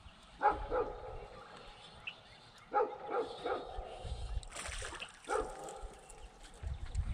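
A dog barking: a few short barks in three small groups.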